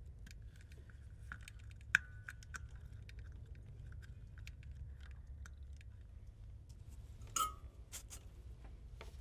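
Light clicks and small rattles of wires and parts being handled inside an open metal guitar-pedal enclosure, with one sharper click about two seconds in and a brief louder rustle a little past seven seconds, over a steady low hum.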